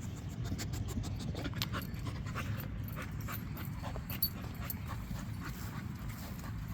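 A dog panting in short breaths, a few a second, over a steady low rumble.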